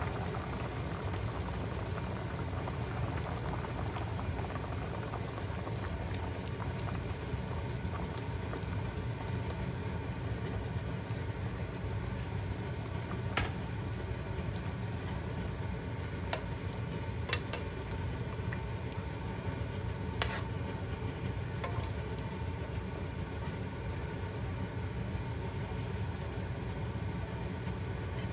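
A pot of chicken sinigang boiling with a steady bubbling hiss, with a few sharp clicks about halfway through.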